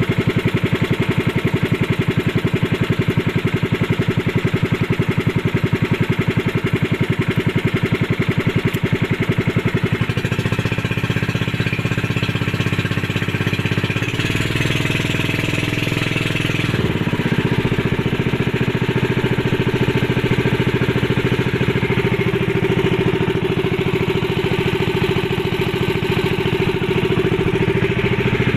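Small engine of a motorized bamboo-outrigger boat running steadily underway, a fast even putter. Its note changes about ten seconds in and shifts again a few seconds later.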